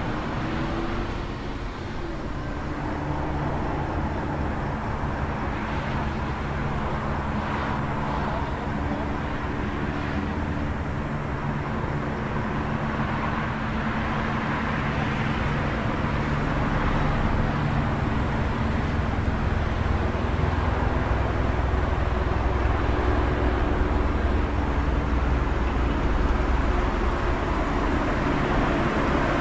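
City street traffic: a steady wash of car engines and road noise, with a low engine hum that gets louder through the second half.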